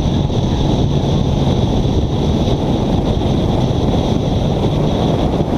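Car engine running hard at speed through corners on a track, a steady low drone, with wind buffeting the camera's microphone.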